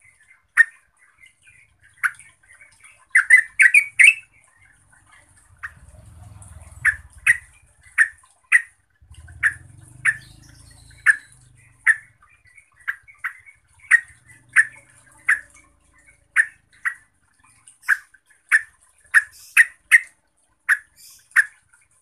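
Yellow-vented bulbul giving a long run of short, sharp calls, roughly one or two a second, with a quick cluster of several notes about three to four seconds in.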